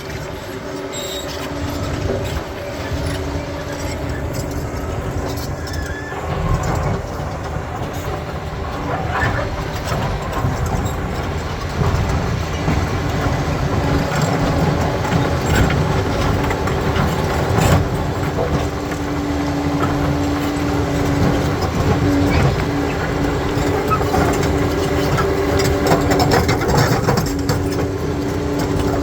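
Crawler bulldozer working over rocky ground: its diesel engine runs steadily under load while the steel tracks clatter and stones crunch beneath them.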